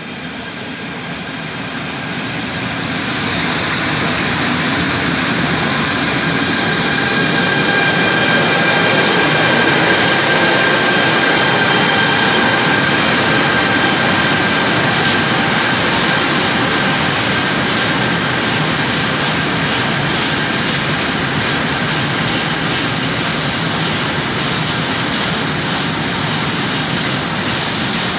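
Electric freight train of closed wagons passing close by: a steady rumble of wheels on rail that builds over the first few seconds as the locomotive comes in, then holds. Thin high squealing tones from the wheels ride over it.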